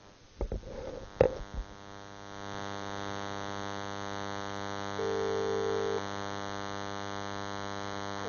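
Telephone line during a call transfer: a few clicks in the first second and a half, then a steady buzzing hum on the line, with a single one-second beep about five seconds in.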